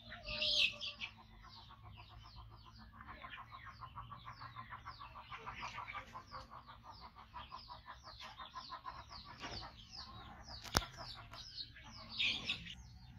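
Birds chirping in a fast run of short, evenly repeated notes that slide downward, with one sharp click about eleven seconds in.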